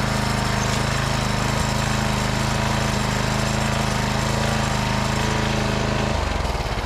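Small gasoline engine of a walk-behind brush mower running steadily under the engaged cutter, whose loose belt and sticking tensioner let the front cutter spin up only slowly. About six seconds in, the engine note changes and drops.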